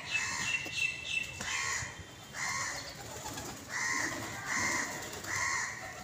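Birds calling in a series of about six short, evenly repeated calls, with low pigeon cooing underneath.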